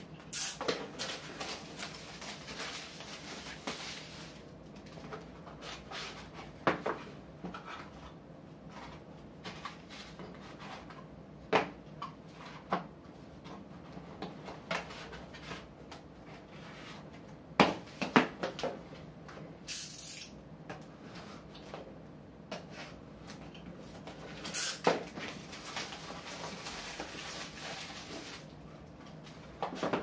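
A small cardboard box being slit open with a utility knife and unpacked by hand: cardboard and tape scraping and rustling, with scattered clicks and knocks on the tabletop and a few short hissy scrapes.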